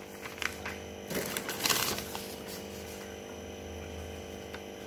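Paper and cardboard rustling as a printed card is pulled out of a cardboard shipping box, in a few short handling noises during the first two seconds; after that only a steady low hum.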